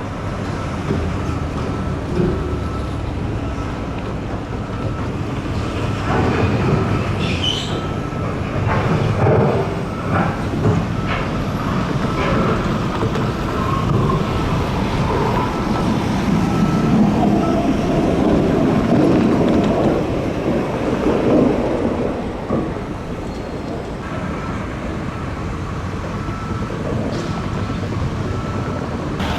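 Metro light rail train passing on the nearby tracks over steady traffic noise: a run of wheel clicks, then a rumble that builds to its loudest about two-thirds of the way through and fades.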